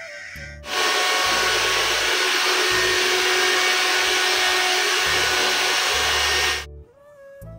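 Handheld hair dryer running: a loud steady rush of air with a faint motor whine. It switches on abruptly about a second in and cuts off about a second before the end.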